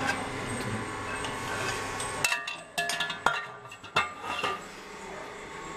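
Stainless steel parts of a tubular centrifuge clinking and knocking as they are fitted together by hand. Several sharp metal knocks come a little over two seconds in and again about three and four seconds in, some of them leaving a brief ring.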